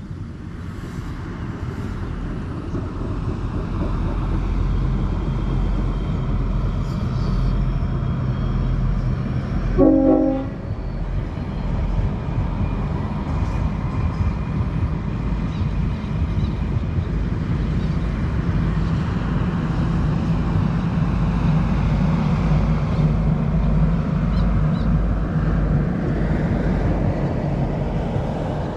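Queensland Rail Spirit of Queensland diesel tilt train running past, its engine and wheels on the rails a steady rumble that builds over the first few seconds. One short horn blast sounds about ten seconds in.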